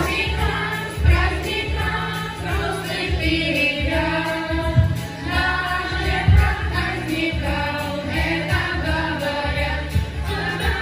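Children's choir singing in unison over instrumental accompaniment with a steady low beat.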